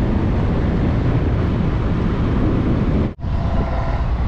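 Steady low rumble of a motor vehicle on the road, broken off for an instant about three seconds in.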